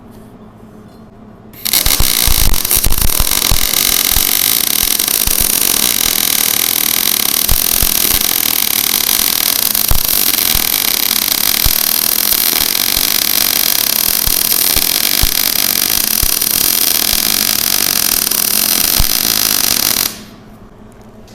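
Wire-feed welder running a steady bead: a continuous, even sizzle like bacon frying, starting about a second and a half in and cutting off abruptly near the end. The steady sizzle is the sign of correct wire speed and voltage and a good solid bead, though it sounded maybe a hair too cold.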